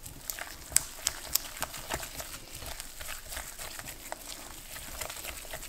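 Thick ricotta and semolina dough being stirred in a glass bowl, the utensil scraping through the dough and clicking irregularly against the glass, several times a second.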